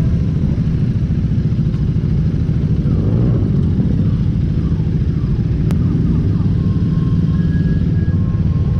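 Motorcycle engine idling steadily, close to the microphone.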